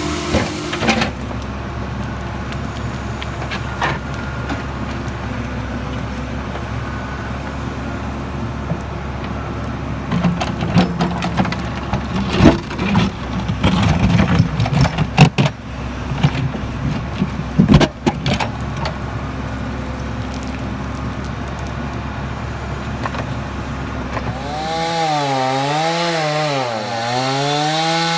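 Heavy equipment engine running steadily, with a run of loud knocks and bangs in the middle. Near the end a higher motor sound takes over, rising and falling in pitch.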